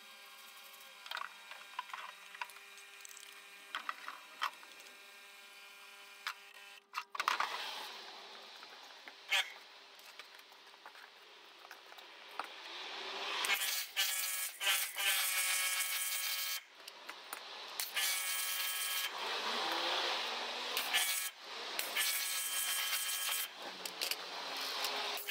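A parts-washer pump hums steadily while the engine's cylinder barrel is scrubbed in it, with a few light knocks. About seven seconds in, this gives way to a pressure washer blasting water onto the iron cylinder barrel and head, the spray hissing and the washer's motor whining in stretches of a few seconds with short pauses as the trigger is let go.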